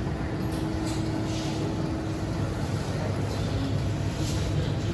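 Steady low rumble of shop background noise, with a faint steady hum that stops about halfway through.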